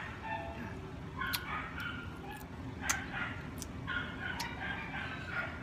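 Hands cracking and peeling the shell of a large cooked tiger prawn, giving a few sharp clicks. Fowl call repeatedly in the background.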